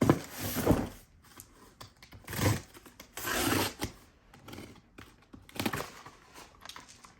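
Product packaging being opened and handled by hand, in several separate bursts of rustling and scraping; the longest comes between about three and four seconds in.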